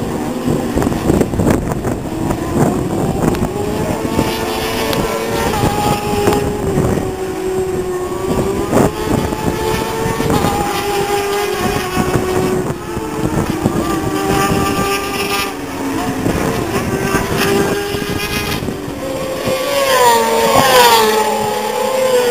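Superbike race motorcycles' high-revving engines heard across the circuit, several bikes at once, their pitch climbing and stepping through gear changes again and again. Near the end they grow louder and the pitch falls as bikes come nearer and brake.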